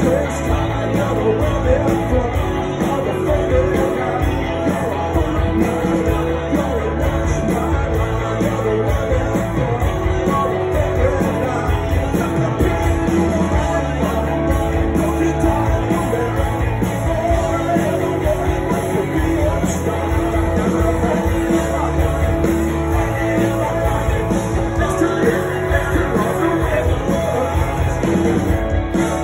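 Live indie rock band playing loudly, with electric guitars, bass, drums and a singing voice, heard from within the audience.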